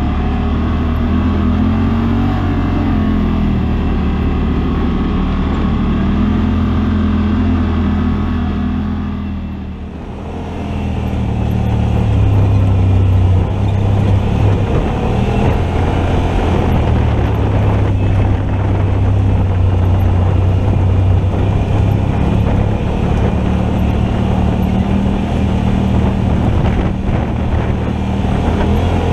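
Side-by-side UTV engine running at low trail speed, its pitch wavering a little with the throttle. About ten seconds in the sound briefly dips and switches to the engine heard on board the moving vehicle.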